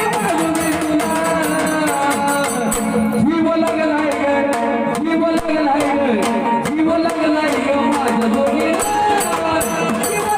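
Marathi devotional folk song of the jagran gondhal / vaghya-murali kind: a singing voice over a steady drum beat and jingling percussion.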